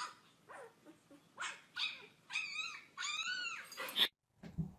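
Recording of a husky puppy played back through a phone speaker: a series of short, high whimpers and yips that rise and fall in pitch. The recording cuts off near the end, followed by a couple of low thuds.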